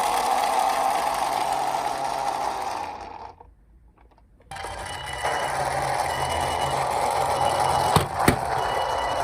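Whirring of a toy minicar's running mechanism. It stops for about a second midway and then starts again, with two sharp clicks near the end.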